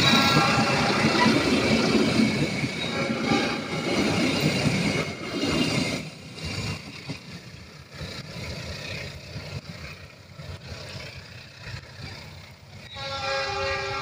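Passenger coaches of a diesel-hauled train rolling past on the rails, loud for the first six seconds and then fading as the last coach recedes. Near the end a train horn sounds from the distant head of the train.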